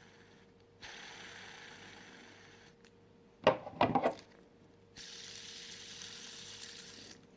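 Fidget spinner spinning twice, its ball bearing giving a steady whir that fades as it slows, then a few sharp clicks of it being handled, then a second spin that stops suddenly.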